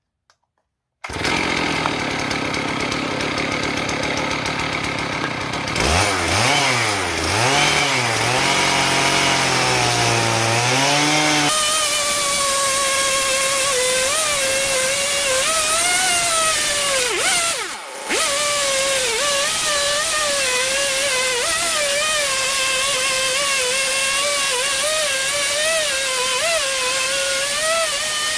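Chainsaw on a homemade chainsaw mill starting up about a second in and revving up and down. It then settles at full throttle, wavering slightly under load as it cuts through the cedar log, and dips briefly about two thirds of the way through.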